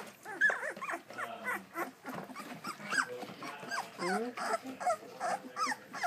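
A litter of 17-day-old Labrador retriever puppies whimpering and squeaking, with many short, high cries that rise and fall and overlap one another.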